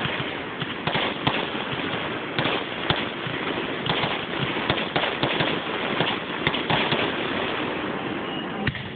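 Aerial fireworks bursting: a rapid, irregular run of bangs and crackles that thins out and drops in level near the end, with a dull, treble-less sound from a phone's microphone.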